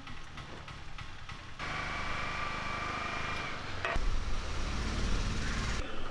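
Faint background noise of road traffic, with a steady high tone held for about two seconds starting about one and a half seconds in.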